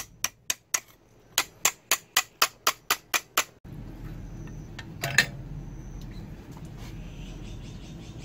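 Hand hammer striking a steel strip cut from a circular saw blade, bent around a form to shape the axe's eye: a quick run of sharp ringing blows, about four to five a second, that stops abruptly about three and a half seconds in. After that a steady low hum with a single knock about five seconds in.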